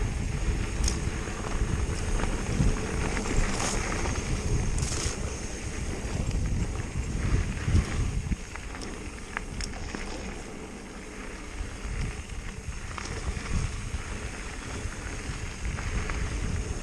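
Wind buffeting the microphone over the roar of the Esker Hayduke's 27.5-plus tyres on a rough descent, with a few sharp clicks and rattles from the bike. The heavy rumble eases about eight seconds in.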